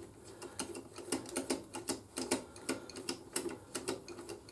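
Ratchet and socket clicking, several sharp clicks a second in irregular runs, as motorcycle rear wheel bolts are spun in hand tight.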